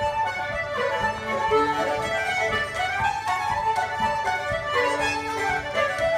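Fiddle playing a traditional dance tune.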